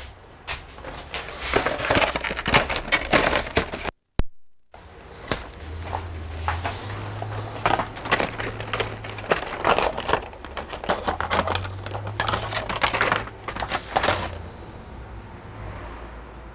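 Clear plastic wrapping crinkling and crackling as it is handled, in several bursts that die down near the end, over a low steady hum.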